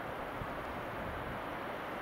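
Snow and ice avalanche pouring down a bedrock slope: a steady, even rushing roar with no separate impacts.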